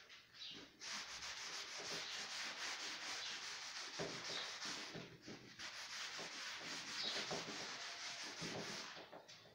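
A chalkboard being wiped clean: a steady run of rubbing strokes across the board, with a short pause about halfway through.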